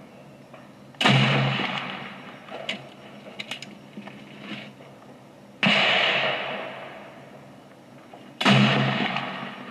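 Three gunshots, about a second in, about five and a half seconds in and near the end, each dying away over about a second. A few faint sharp clicks fall between the first two.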